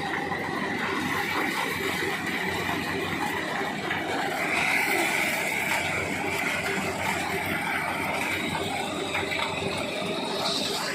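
An engine running steadily, with a continuous whine held throughout.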